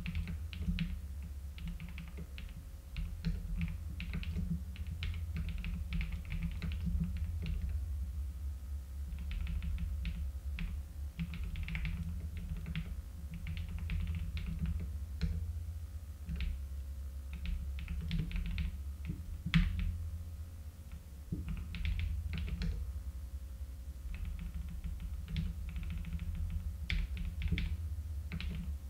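Typing on a computer keyboard: runs of quick keystrokes broken by short pauses, with one louder key press about two-thirds of the way through. A steady low hum lies underneath.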